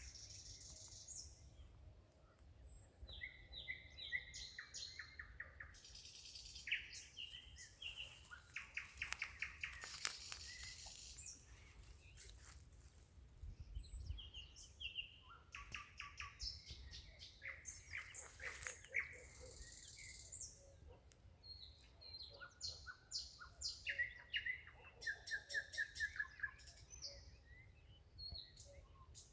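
Nightingale singing: phrases of rapidly repeated notes and dry clicking rattles, separated by short pauses, over a faint low rumble.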